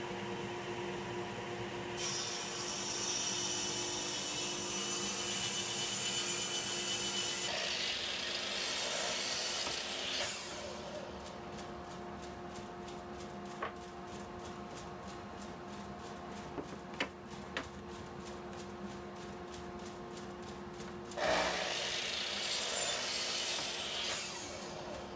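Table saw ripping an ash board lengthwise, the blade cutting for about eight seconds. After a quieter stretch with a few light clicks, a power miter saw cross-cuts a board for about three seconds near the end, all over a steady machine hum.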